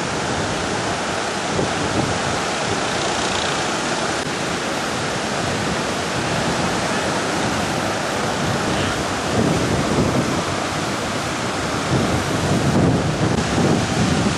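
Heavy surf breaking on the beach under strong wind, a steady roar of waves. In the second half, gusts of wind buffet the microphone with low rumbles.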